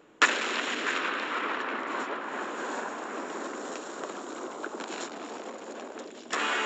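Quarry rock-face blast: a sudden loud bang about a quarter second in, then several seconds of crackling, hissing noise from the falling rock and dust, slowly dying away. Music cuts in near the end.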